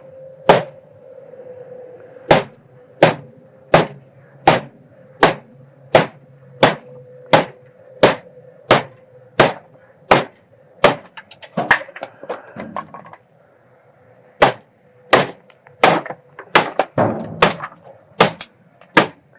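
Hammer blows on a pediment glued fast with PL construction adhesive, about one and a half strikes a second for some eleven seconds. After a short pause, more strikes come, some in quicker succession near the end. The piece is not coming loose.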